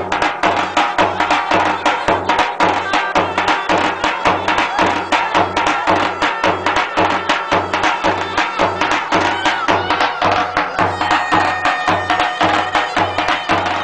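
Middle Eastern folk dance music for a line dance, with a steady fast drumbeat under a held melody line.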